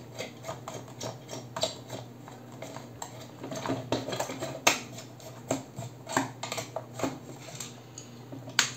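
Irregular light clicks and clinks of small metal hand tools and parts being handled on a workbench, with a sharper knock about halfway through and another near the end, over a steady low hum.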